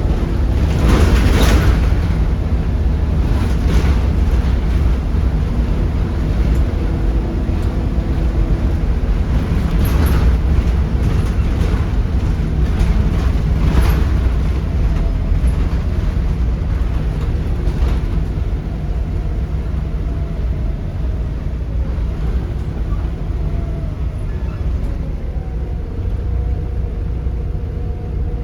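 Volvo B7RLE single-deck bus with a 7.3-litre Volvo D7C diesel engine, heard from on board as it drives along: a continuous deep rumble with a few sharp knocks and rattles. A faint steady whine comes in near the end.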